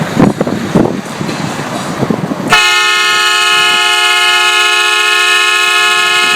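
Compressor-fed train horn, rated 145 dB, blasting a loud, steady chord of several notes. It cuts in suddenly about two and a half seconds in, after rushing outdoor noise, and holds without a break.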